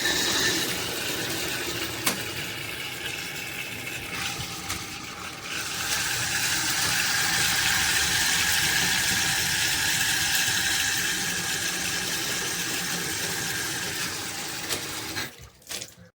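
Water running steadily from an Esnbia tub and shower faucet. It grows louder about six seconds in, then stops abruptly near the end.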